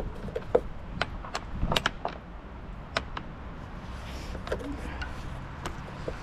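A run of sharp clicks and light knocks, a dozen or so at irregular spacing, over a low steady rumble.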